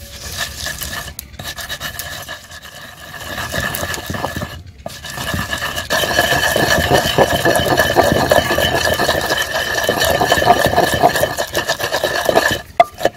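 Wooden pestle grinding and pounding fresh coriander, green chilli and salt in a stone mortar: a rapid, grating scrape of wood against stone. It grows louder and busier about halfway through, with two brief pauses before that.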